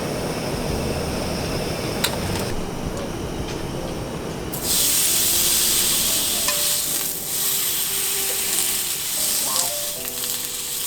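Low rushing noise, then about halfway through a sudden loud sizzle as food goes into a hot pan, frying steadily.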